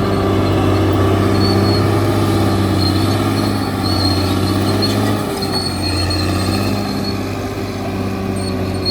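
Caterpillar D6R XL bulldozer's diesel engine running steadily while working, with a thin high squeal coming and going. The engine note dips slightly about five seconds in.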